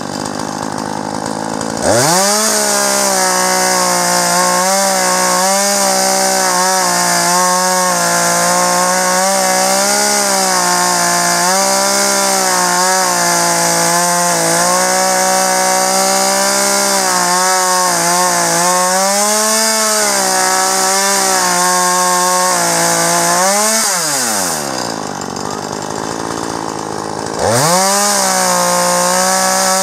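Chainsaw idling, then revved to full throttle about two seconds in and held under load as it rips lengthwise through a log in a lumber cutting guide, its pitch sagging and recovering a little as the chain bites. Near the end it drops back to idle for a few seconds, then revs up again.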